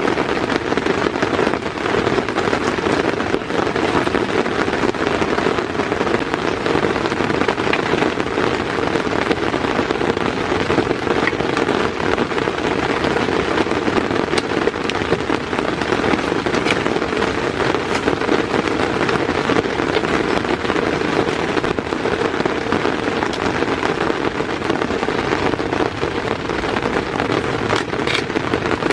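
Heavy rain falling on a tent: a dense, steady patter of drops on the fabric, with many sharp individual hits.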